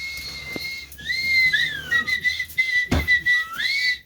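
A person whistling a run of notes: a long held note, a couple of short falling glides, then a rising slide near the end. A single thump about three seconds in.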